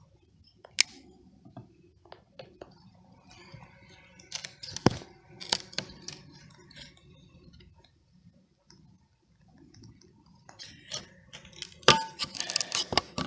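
Handling sounds as the cover of a bee package is worked off and the metal sugar-water feeder can is pulled out: scattered clicks, knocks and light scrapes of wood and metal, with a few sharper knocks.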